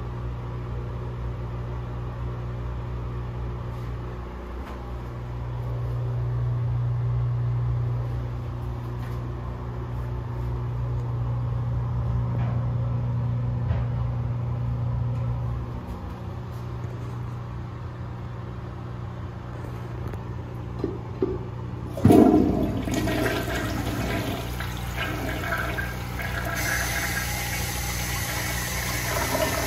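A steady low hum, then about 22 seconds in a 1984 Mansfield Imperial comfort-height toilet is flushed: a sudden loud rush of water into the bowl that swirls down the drain. Near the end a higher hiss joins as the tank refills through its Fluidmaster 400 fill valve.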